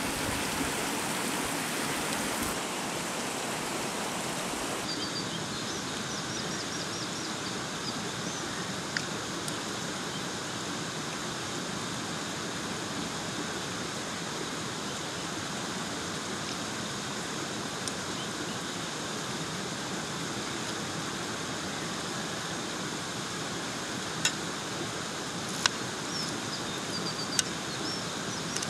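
Steady rushing outdoor background noise, with a few sharp clinks near the end as a spoon and fork strike the metal serving tray.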